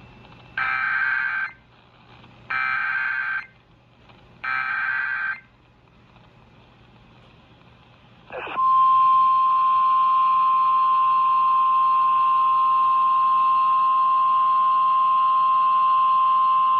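Emergency Alert System header: three short bursts of screechy data tones, about a second apart. After a few seconds' pause, the single steady 1050 Hz National Weather Service warning alarm tone comes on loud and holds.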